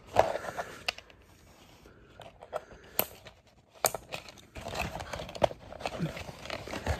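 Packaging crinkling and rustling, with a few sharp clicks as toy lightsaber kit parts are handled and unwrapped. The rustling grows busier in the second half.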